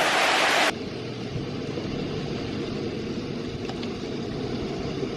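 Storm wind and heavy rain noise buffeting the microphone, cutting off abruptly under a second in to a quieter, steady rushing of the downpour.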